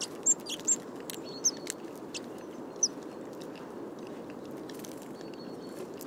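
Short, high chirps from tits, several in the first three seconds mixed with a few sharp ticks, over a steady low background noise.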